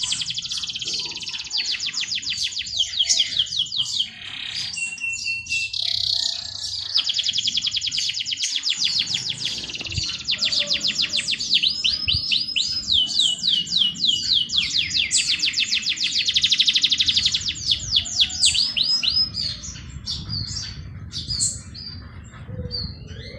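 Songbirds singing long, high-pitched trills of very rapidly repeated chirps, run after run. Near the end the trilling thins out into scattered short calls.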